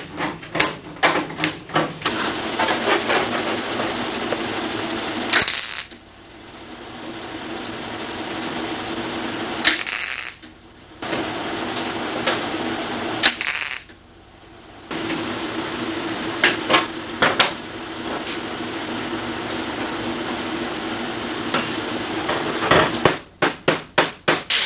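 MIG welding on a sheet-metal wheel arch patch: a steady crackling buzz in several long stretches, broken by short pauses. Runs of sharp metallic taps come near the start and again near the end.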